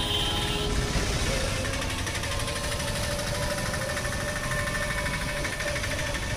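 Street traffic heard from an open auto-rickshaw on the move: a steady rumble with an engine's rapid, even clatter running through it.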